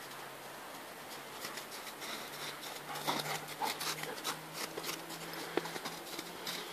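Footsteps crunching in snow: irregular short crunches and scrapes, busier from about a second and a half in.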